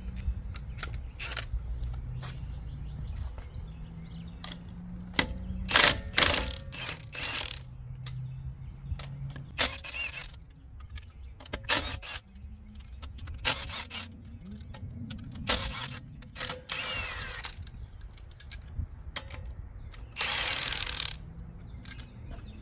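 Lug nuts being taken off a pickup's front wheel: several short bursts of a cordless impact wrench, with clicks and clinks of loose nuts and tools between them.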